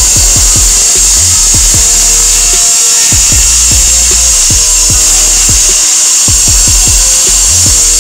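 A steady high-pitched whine from a power tool cutting into the wall, under music with a deep, repeating bass drum beat whose hits drop in pitch.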